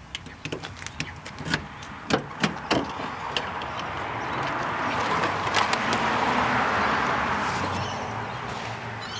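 A vehicle passing, its rushing noise swelling to a peak about six seconds in and then fading. Before that come several irregular sharp clicks and knocks over the first three seconds.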